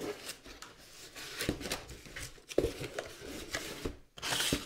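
Cardboard box and its packaging being rummaged through by hand: scattered clicks, knocks and scrapes, with a short rustling burst about four seconds in.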